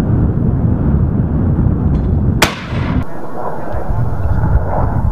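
A single sharp weapon firing report about two and a half seconds in, with a brief ringing tail, over a steady loud low rumble.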